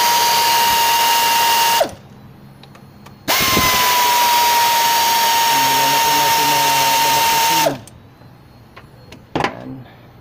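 Cordless electric ratchet wrench undoing the bolt that holds the AC pipe to the compressor, its motor running with a steady high whine. It stops about two seconds in, then runs again for about four seconds.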